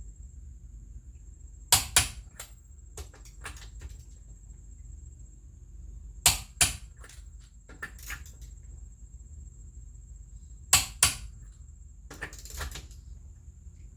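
Click-type torque wrench tightening wheel lug nuts, giving a sharp double click each time a nut reaches its set torque. The double clicks come three times, about four and a half seconds apart, with softer clicks in between.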